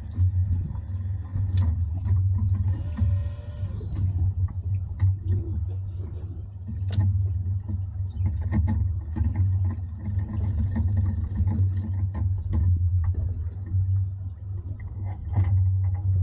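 Steady low drone of a fishing boat's engine, with scattered knocks and clicks. About three seconds in, a short pitched whine lasting around a second.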